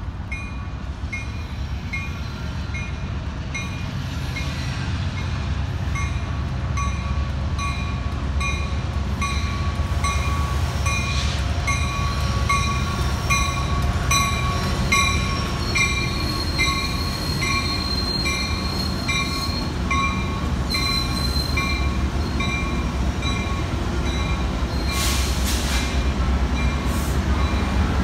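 Trinity Railway Express bilevel commuter train pulling into a platform: a low rumble of wheels on rail that grows steadily louder as it arrives. A bell rings about twice a second throughout, and a high steady squeal comes in a little past halfway.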